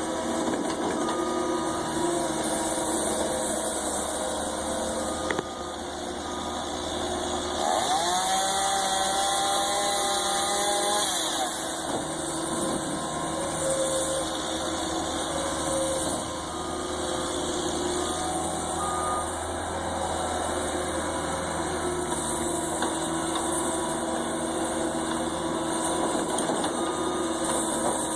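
An engine running steadily, with a stronger whine that rises about eight seconds in, holds for a few seconds, and then drops away.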